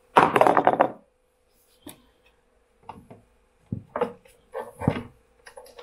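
Hands handling the plastic case and control board of a variable frequency drive: a short rustle at the start, then scattered clicks and knocks. A faint steady hum runs underneath.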